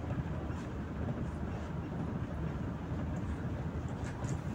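Steady low drone of engine and road noise inside the cabin of a 2014 PAZ-4234-05 bus on the move, with a few faint rattles near the end.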